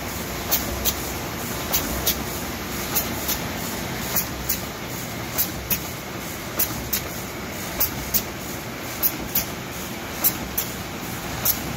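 Moll Flexcut die-cutting and stripping machine running: a steady mechanical noise with a pair of sharp clicks repeating about every 1.2 seconds as it cycles.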